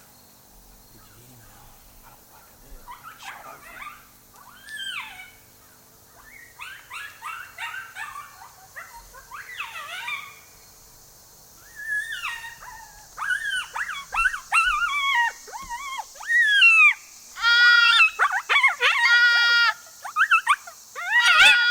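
Coyote-style whimpers, yips and wavering howl-like calls, scattered at first and then thickening about halfway through into a loud, dense run of overlapping yips. Several longer, steady-pitched wails come near the end.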